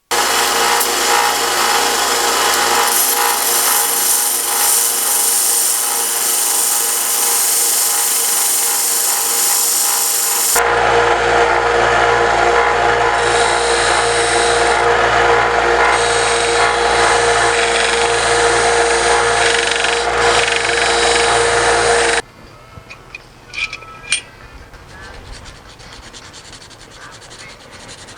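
Small power tool grinding brass: a steady motor tone under a loud grinding noise. It stops abruptly about 22 seconds in, leaving a few light taps.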